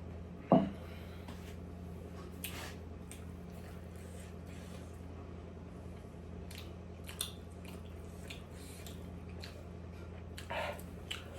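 Close-up eating sounds: soft, wet chewing and lip smacks of someone eating momos, with one sharp knock about half a second in, over a steady low electrical hum.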